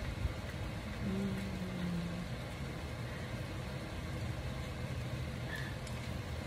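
Steady low background rumble, with a short low humming note lasting about a second, starting about a second in.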